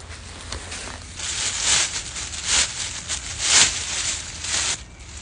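Thin plastic shopping bags crinkling and rustling as they are handled and untied, in a run of short bursts.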